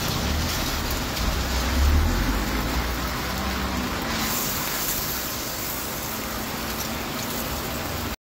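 Steady hiss of heavy rain mixed with cooking oil sizzling on a flat griddle as a meat-filled lumpia fries. A low rumble runs through the first three seconds, and the hiss turns brighter about four seconds in.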